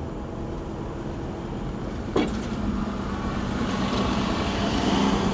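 Vehicle engine and road noise heard from inside the cab while driving slowly over a rough dirt road, with a steady hum that grows a little louder toward the end. A single sharp knock about two seconds in.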